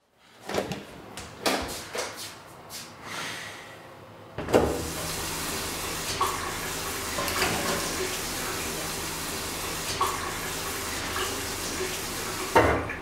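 A few sharp knocks and clicks, then a bathroom sink's mixer tap turned on with a clunk about four seconds in. Water runs steadily into the basin and is shut off near the end.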